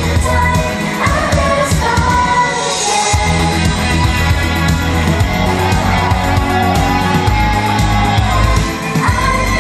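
A girl group singing a pop song live into microphones over loud amplified pop music with a steady beat; the bass and beat drop out briefly about three seconds in.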